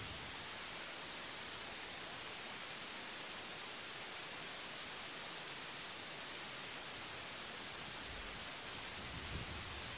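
Steady hiss with nothing distinct over it: the recording's own noise floor.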